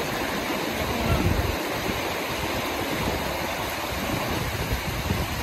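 Steady rush of flowing river water, with wind rumbling on the microphone.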